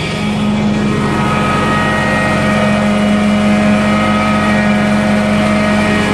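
Carpet-cleaning extraction machine running steadily at a loud, constant hum, with fainter whining tones above it.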